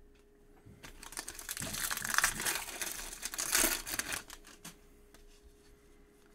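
Foil wrapper of a Bowman's Best trading-card pack crinkling as it is opened and the cards are slid out. A dense crackling starts about a second in and lasts about three seconds.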